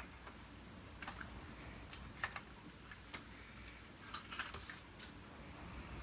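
Scattered light clicks and taps of plastic parts being handled while a vacuum cleaner is taken apart, with a small cluster of clicks about four seconds in.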